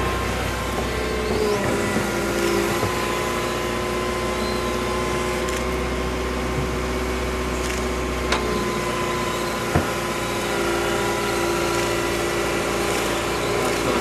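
Tracked excavator's diesel engine running steadily as it digs, with a steady whine over the engine hum and a couple of sharp knocks about eight and ten seconds in.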